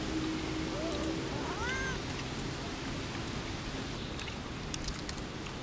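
Domestic cat meowing: a short rising note about a second in, then one arching meow just after, with a few faint clicks later on.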